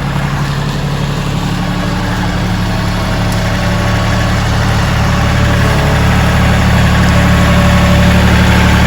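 Kioti CK3510SE compact tractor's three-cylinder diesel engine running steadily at low revs, growing gradually louder.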